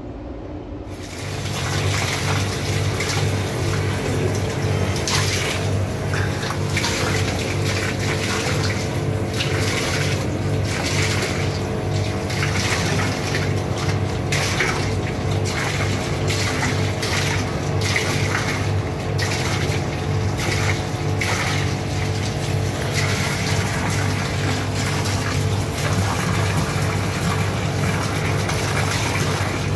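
Water running steadily through a drain, starting about a second in, with a steady low hum beneath it.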